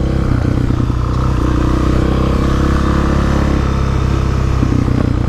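Suzuki DR-Z400SM's single-cylinder four-stroke engine running steadily at low revs.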